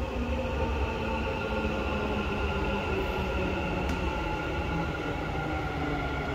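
Dubai Metro train running, a steady electric whine of several tones over a low rumble.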